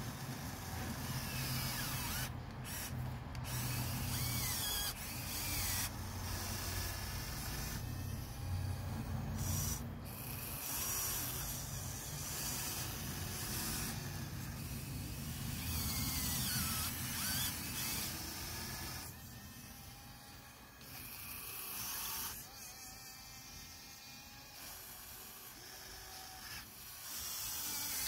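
Huina 1580 RC excavator's small electric motors and gears running as the boom, arm and bucket move, with a whine that rises and falls in pitch and the bucket scraping through gravel. It goes quieter for a while about two-thirds of the way through.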